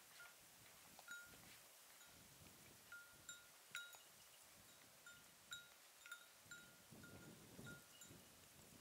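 A small bear bell ringing faintly, a clear single-pitched ding repeating irregularly one to two times a second as it swings.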